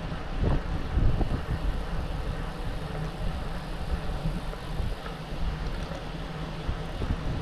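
Wind buffeting a bike-mounted camera's microphone at about 24 mph, over a steady rumble of tyres on the road, with a few low bumps in the first second or so.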